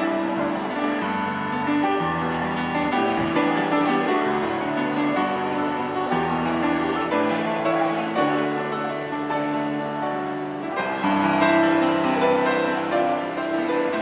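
Piano music with slow, held chords.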